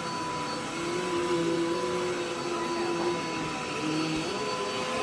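Vacuum cleaner running steadily, its motor whine wavering slightly in pitch as it works across the floor.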